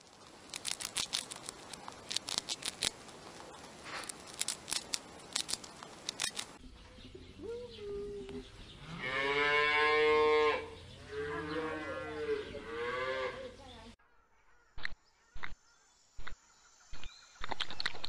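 A hamster nibbling food, a run of quick crisp clicks, for the first third. Then cattle mooing, two long deep moos in the middle, the first the loudest sound. A few sharp clicks near the end.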